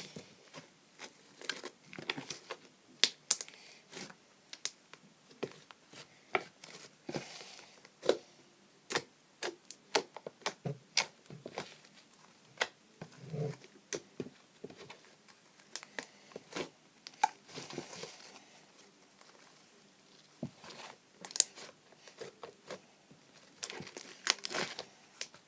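Homemade fluffy slime made with shaving foam being kneaded and stretched by hand, giving irregular sticky pops and crackles as air pockets burst.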